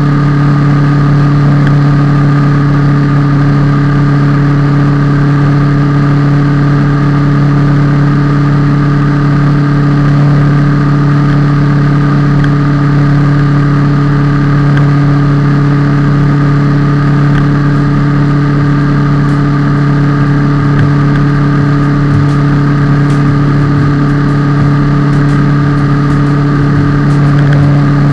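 Kawasaki ER-6F's parallel-twin engine running at steady revs while the motorcycle is ridden, a constant drone that holds one pitch throughout.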